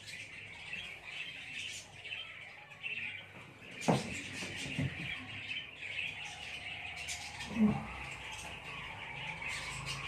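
A flock of caged pet budgerigars chattering and chirping steadily. Two sharp knocks stand out, one near the middle and one about three quarters of the way through.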